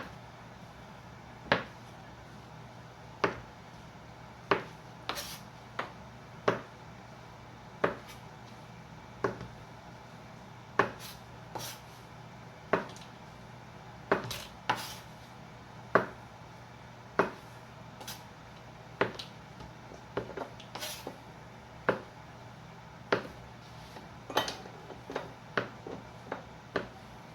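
Kitchen knife cutting through biscuit dough and striking a cutting board, about one sharp knock every second and a half, as the biscuits are cut into quarters for dumplings.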